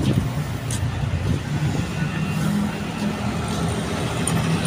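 Road traffic passing on a city avenue: a steady low hum of vehicle engines and tyres.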